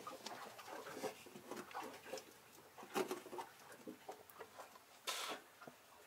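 Faint scattered clicks and small knocks of hands handling things, with a sharper knock about three seconds in and a brief rustle or rush about five seconds in.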